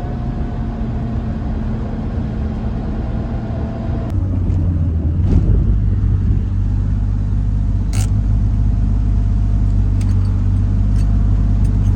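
Nissan 240 drift car's engine running as the car is driven, with a steady engine note that turns deeper and louder about four seconds in. A single sharp click near the eight-second mark.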